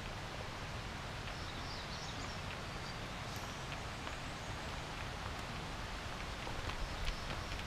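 Steady outdoor forest ambience, a constant noisy hiss with low rumble, with a few faint high bird chirps about a second and a half to three and a half seconds in and some light scattered clicks.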